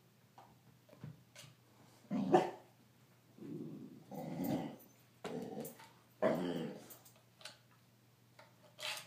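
A dog growling in five short growls of about half a second each, between about two and seven seconds in, as two dogs contest a chew.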